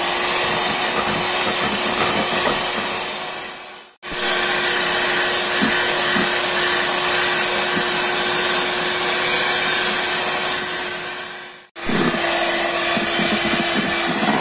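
Electric hand mixer running steadily with a constant hum, its beaters whipping non-dairy whipping cream in a stainless steel bowl until it turns fluffy and holds peaks. The sound cuts out abruptly twice, about four seconds in and again near the end, and starts again straight away.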